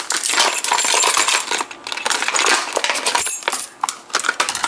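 A brass padlock and its keys being handled, with dense rattling and clicking and bright metal clinks and jingles.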